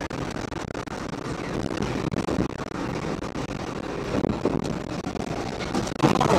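Car driving at highway speed, a steady rumble of road and wind noise heard from inside the cabin. Near the end a sudden louder noise starts.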